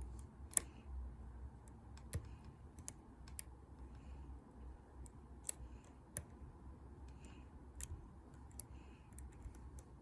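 Faint, irregular small metal clicks of a hook pick and tension wrench working the pin tumblers in the keyway of a Master Lock 140 padlock, with a few sharper clicks standing out now and then.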